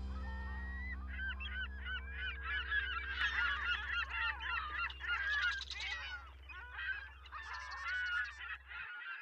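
A large flock of birds calling over one another in short, overlapping calls, over a low held music chord that stops near the end.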